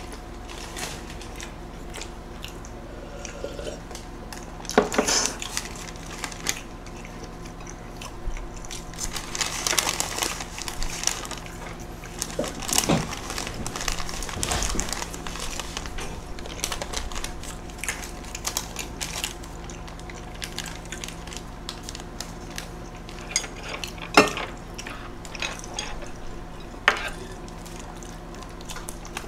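Close-miked eating sounds: scattered clicks of chopsticks against plates, the paper wrapper of a burger rustling, and chewing, over a steady low hum.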